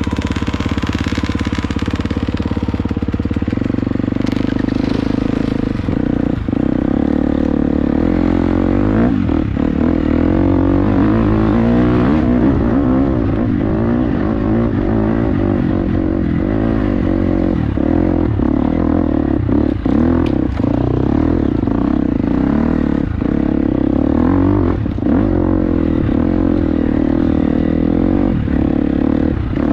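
Dirt bike engine running under load on a trail, its revs rising and falling, with scattered knocks and clatter from the bike. The engine note changes about three and a half seconds in.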